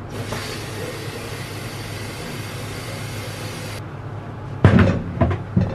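Tap water running into an electric kettle, cutting off just before four seconds in, then three loud clunks as the kettle is handled and set down.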